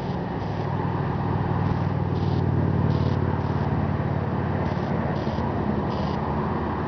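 A vehicle engine's low rumble, growing louder toward the middle and easing off a little near the end.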